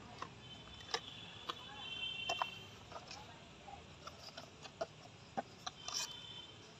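Plastic and paper packaging being handled: scattered light clicks and taps as the plastic tray of a GoPro Hero 11 Black box is opened and its paper insert is pulled out. A high, steady chirping sound is heard twice in the background, once in the first couple of seconds and again near the end.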